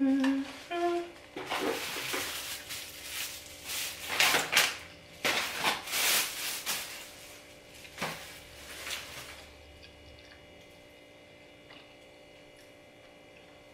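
Rustling and clattering of things being handled beside a dinner table, loud and irregular for several seconds, then dying away to quiet room tone with a faint steady hum.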